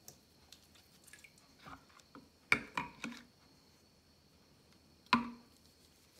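Wet sounds of a soapy puppy being bathed over a kitchen sink: faint squishing and dripping, with a quick run of three sharp knocks or splashes about two and a half seconds in and one more near five seconds.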